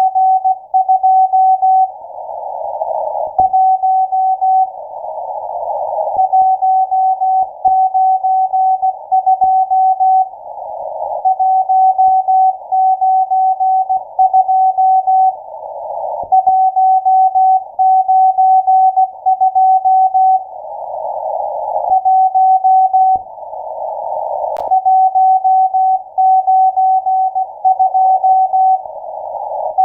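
Morse code from the M12 numbers station heard over a shortwave receiver: a single steady tone keyed in dots and dashes. In the pauses between groups, static hiss gradually swells up.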